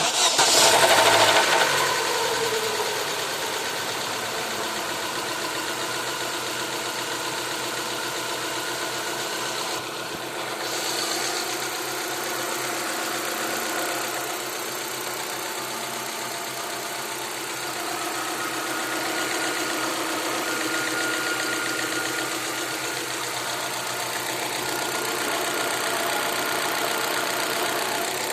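Opel Z16XER 1.6-litre four-cylinder petrol engine starting: it comes in suddenly, its revs flare for about the first two seconds, then it settles to a steady idle.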